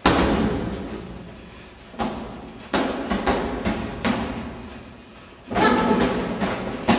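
Boxing gloves landing punches in sparring: a run of sharp thuds at irregular intervals, each ringing out in a large echoing hall.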